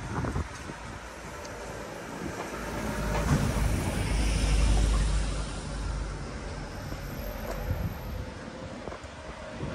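A box truck's engine rumbling as it drives past close by, swelling to its loudest about four to five seconds in and then fading away.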